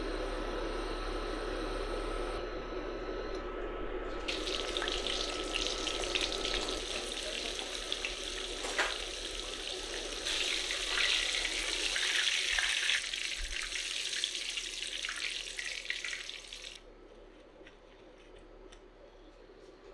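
Breaded chicken cutlets deep-frying in hot oil in a stainless steel pan: a dense sizzle starts about four seconds in, grows louder around the middle, and cuts off suddenly near the end.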